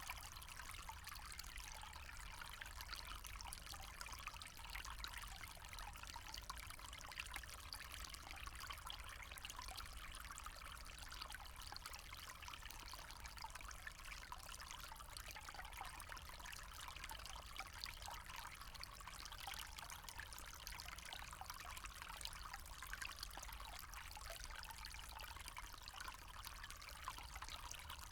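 Small forest stream trickling and gurgling over stones, a steady, even flow of water with no change.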